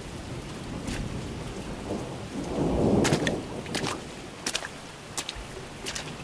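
Rain falling steadily, with a low rumble of thunder swelling and fading about halfway through. Several short, sharp slaps sound over it, mostly in the second half.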